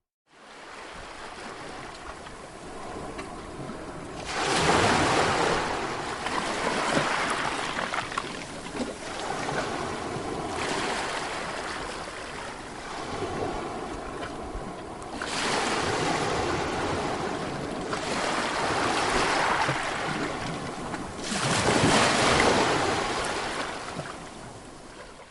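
Sea waves breaking on a shore, surging loudly three times with a steady wash of surf in between. The sound fades in at the start and out near the end.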